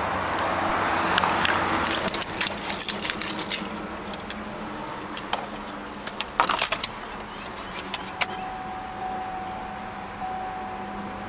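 Keys jangling and clicking as the ignition key is handled and turned to the on position in a 2006 Chevrolet Colorado. From about eight seconds in, a steady warning tone sounds from the truck's dash with the engine not yet running.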